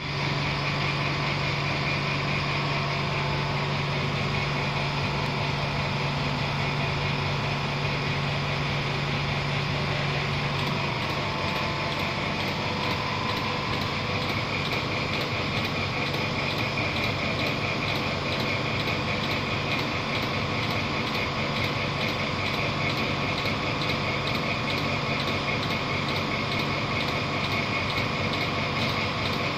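Desktop automatic glue-dispensing robot running, its motor-driven axes moving the syringe head along the part: a steady mechanical whirring. A low hum underneath stops about eleven seconds in.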